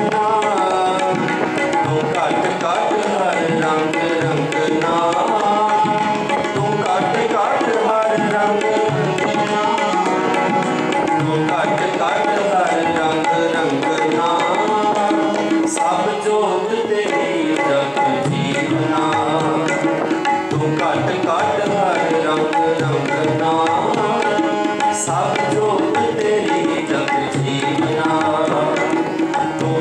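Harmoniums and tabla playing shabad kirtan music: a continuous reedy harmonium melody over a busy, steady tabla rhythm.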